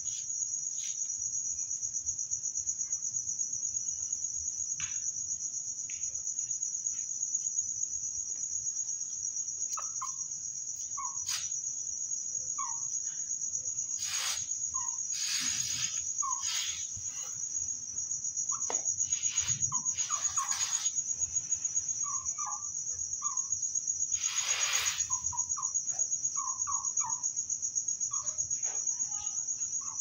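Chickens clucking softly in short, scattered calls over the steady high trill of crickets, with a few brief rustles.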